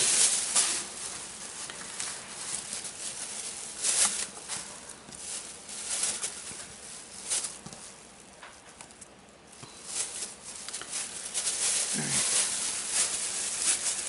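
Thin plastic bag crinkling and rustling in irregular bursts as it is handled, with a quieter stretch around the middle.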